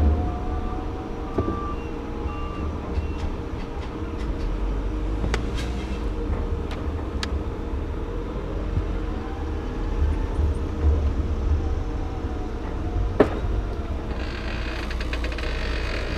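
A vehicle engine running steadily. A reversing alarm beeps about once a second during the first few seconds, and a few sharp metal knocks land at scattered moments.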